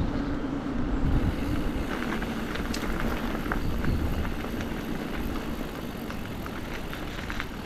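Steady rolling noise of tyres on a lane with wind on the microphone, a faint hum fading out over the first few seconds, and light scattered clicks as the surface turns rough.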